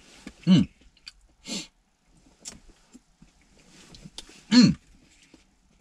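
A man clearing his throat and coughing while eating: three short throaty sounds, about half a second in, at about a second and a half, and a loud one near the end.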